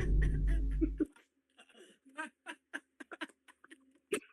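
A loud, deep, bass-heavy music sting cuts off suddenly about a second in. It is followed by soft, stifled giggling in short bursts.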